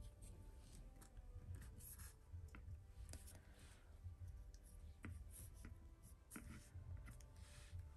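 Faint rustling and light tapping of sticker paper being handled and pressed onto a planner page, with a few soft clicks.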